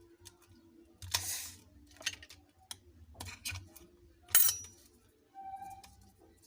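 Small clicks, taps and brief scrapes of plastic and metal smartphone parts and tools being handled during a teardown, the sharpest click about four seconds in, over a faint steady hum.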